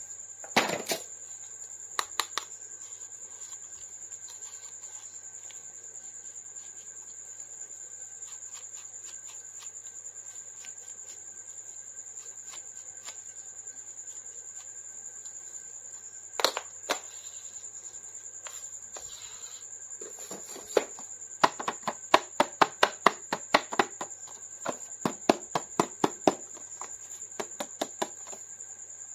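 Sharp plastic clicks and taps from toy figures and packaging being handled: a few near the start, one at about the middle, then a quick run of clicks through the last third. A steady high-pitched whine runs underneath.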